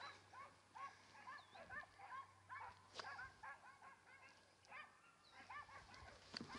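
Faint barking and yelping of a pack of hunting dogs, many short barks overlapping, with a single click about three seconds in.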